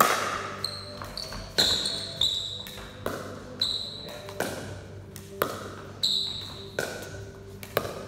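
Pickleball rally: the hard hollow plastic ball is struck back and forth with paddles and bounces on the concrete court, about a dozen sharp pops at uneven spacing. Each one rings and echoes in a large hall.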